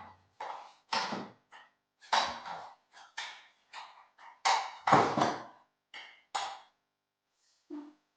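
A run of about a dozen irregular knocks and taps from carpentry work on a window: wood and tools being struck and handled, a few harder thuds among lighter clicks.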